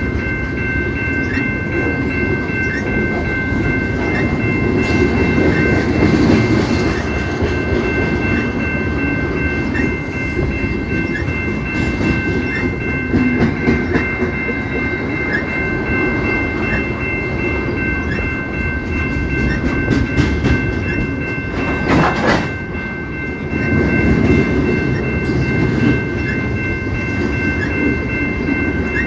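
Canadian Pacific train cars rolling past with a steady rumble and wheel clatter on the rails, along with a steady high ringing tone.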